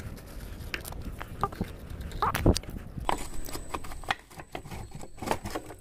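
Irregular clicks, clinks and knocks of hand tools and a Bajaj Pulsar 150's drive chain as the chain is being taken off, in two busier clusters about two and five seconds in.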